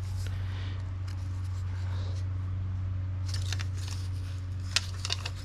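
Light clicks and rustles of parts and wiring being handled on an air strut, a cluster about three seconds in and a sharp click near the end, over a steady low hum.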